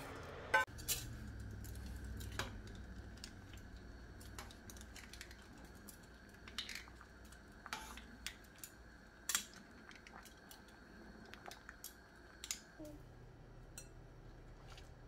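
Scattered light clicks and clinks of kitchen utensils against pans, a pot and a bowl, irregular and a second or more apart, over a faint steady hum.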